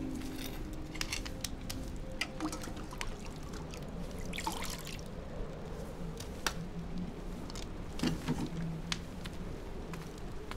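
Open hearth fire crackling, with irregular sharp pops and a short hiss about four and a half seconds in.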